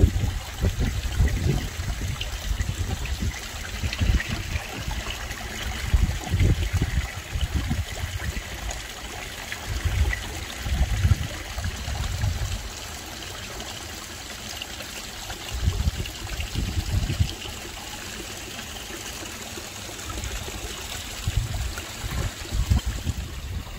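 Water trickling and splashing into a koi pond from a small waterfall, with rain pattering on the pond surface. Irregular low rumbles of wind buffeting the microphone come and go several times and are the loudest sound.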